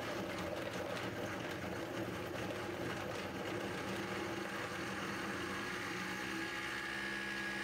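Vitamix blender motor running steadily, its blade chopping celery stalks with no water added. Without liquid the pulp is thrown up onto the sides of the jar, away from the blade.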